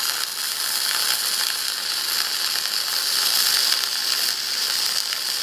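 Millermatic 251 MIG welder's arc burning .045 flux-core wire at about 26 volts, a steady, even crackle through a continuous weld bead: a hot weld with little spatter.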